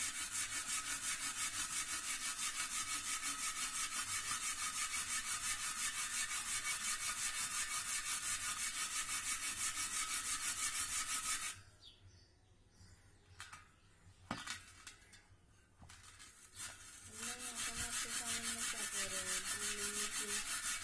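A hand brush scrubbed back and forth in fast, even strokes against the rusted rim of a motorcycle spoke wheel to clean off the rust. The scrubbing stops a little past halfway, with a few light knocks in the pause, and starts again a few seconds before the end.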